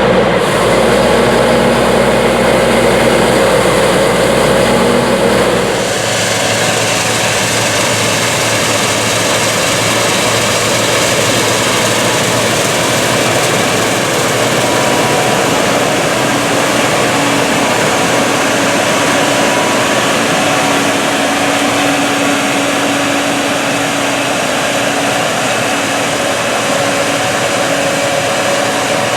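Gleaner S97 combine, with its 9.8-litre AGCO Power diesel, running steadily in a loud, constant drone while harvesting soybeans. About six seconds in, the sound changes abruptly: the deep rumble drops away and a hissier, higher machine noise takes over.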